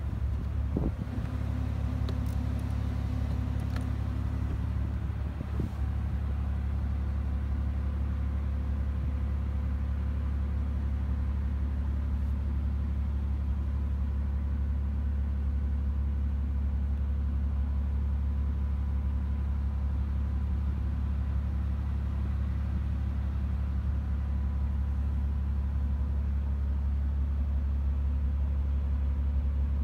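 Mercedes-AMG G65's twin-turbo V12 idling steadily, heard from inside the cabin as an even low hum. A few light clicks sound in the first several seconds.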